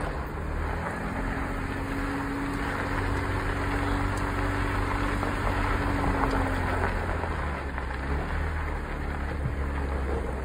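Jeep Wrangler's engine pulling steadily up a steep dirt and gravel trail, heard from inside the vehicle, with a low drone and the noise of tyres over loose rock. A steady higher hum joins about a second in and fades out around seven seconds in.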